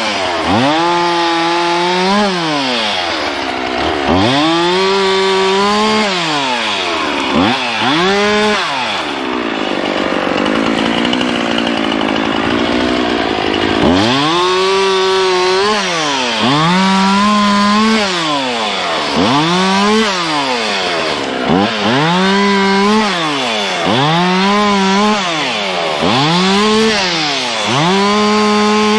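Chainsaw engine revved up and down over and over, its pitch climbing to full throttle and falling back every second or two. Near the middle it runs lower and steadier for a few seconds.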